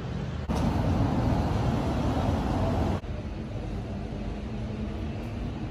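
Steady low rumble of a vehicle. It becomes louder and noisier about half a second in, then drops back abruptly at three seconds.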